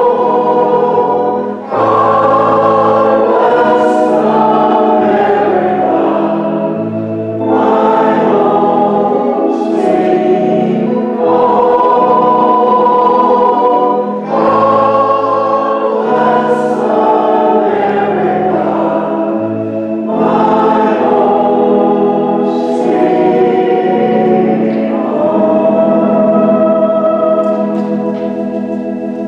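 A recessional hymn sung by several voices over pipe-style church organ, with the organ's low bass notes changing under each chord. Near the end the singing stops and the organ carries on alone.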